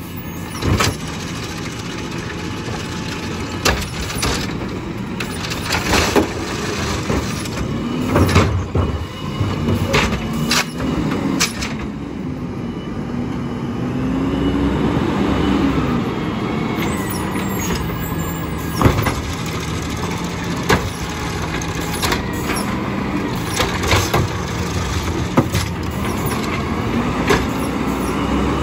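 Natural-gas automated side-loader garbage truck working carts: its engine runs throughout while the lifting arm clanks and bangs repeatedly, and a wavering drone rises and falls as the truck moves ahead to the next cart.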